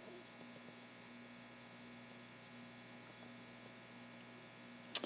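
Faint steady electrical mains hum in the recording, with one short click near the end.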